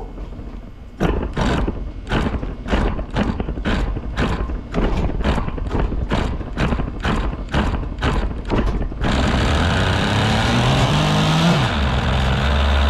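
Kyosho GT32 marine nitro engine being cranked over in a regular beat of about three strokes a second, then about nine seconds in it fires and runs steadily, its pitch rising and falling once. It runs even though the owner believes the carburettor is still partly clogged.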